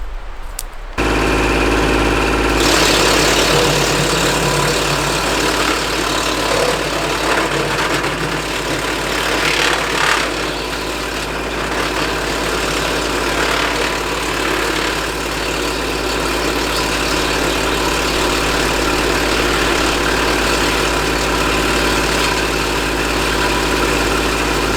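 Kubota L2501 compact tractor's diesel engine driving a Woodland Mills WC46 PTO wood chipper at steady working speed. The sound starts suddenly about a second in and turns harsher a moment later.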